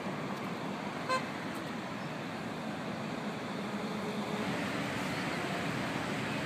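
Street traffic noise with a short car horn toot about a second in.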